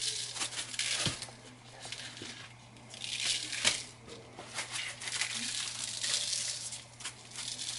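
Seasoning shaken from a plastic shaker jar, the granules rattling and hissing out in several bursts, with rustling of gloved hands and a couple of sharp taps of the jar.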